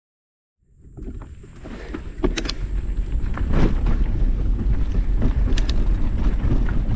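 Mountain bike rolling along a rocky trail: wind on the microphone and tyre rumble, with sharp clicks and rattles from the bike. The sound cuts in from silence about half a second in and builds to a steady level over the next couple of seconds.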